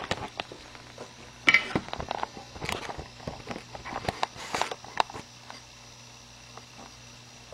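Scattered light clicks, taps and knocks, several a second and uneven, like handling noise at a workbench, over a faint steady low hum.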